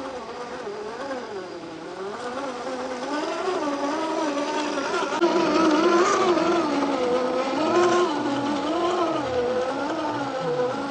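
Axial SCX10 II RC crawler's electric motor and gearbox whining, the pitch rising and falling as the throttle is worked while it crawls over rocks. It gets louder about five seconds in.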